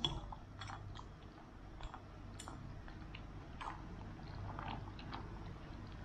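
Scattered soft plops and light ticks as lotus seeds are scraped off a plate into a pot of chicken broth and chopsticks stir in the aluminium pot, over a faint low hum.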